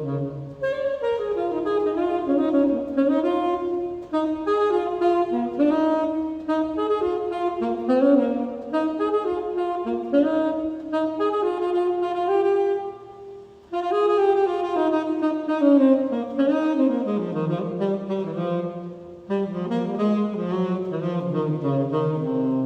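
Tenor saxophone improvising a melodic line over the steady hum of an electric fan, which sets the key. It plays in phrases broken by short breaths.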